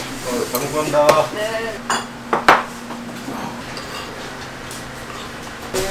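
Bowls and metal utensils clinking and clattering: several sharp knocks in the first two and a half seconds, then a quieter low steady hum.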